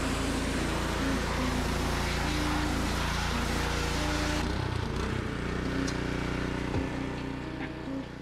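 Honda GX200 single-cylinder engine of a gas pressure washer running steadily, with the high-pressure spray hissing against a lawn mower deck. The spray stops about halfway through while the engine keeps running.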